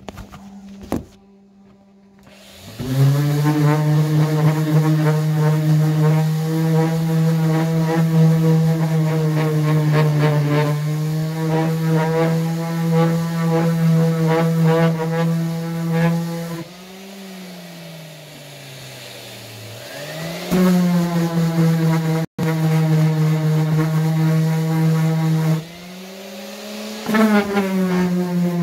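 Electric power sander running while a board is sanded smooth, a steady motor hum with many overtones. It starts about three seconds in, is switched off partway through and winds down with a falling pitch, then starts again. Near the end it drops out briefly and starts once more.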